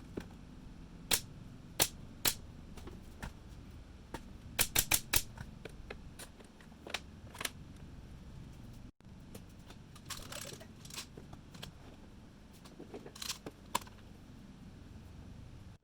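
A series of sharp, separate clicks and snaps from work on a wooden box, with a quick run of about four near five seconds in, over a low steady shop background.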